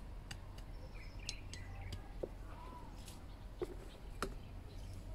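Small hand hoe working hard, clumpy garden soil: scattered light clicks and knocks, the two strongest about three and a half and four seconds in. Birds chirp briefly in the background.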